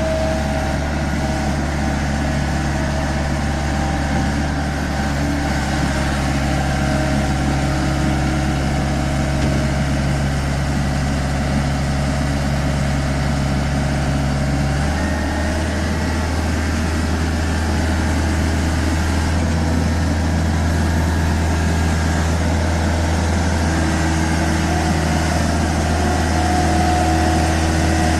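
Skid steer loader engine running steadily, with a low hum; the engine note changes abruptly about halfway through.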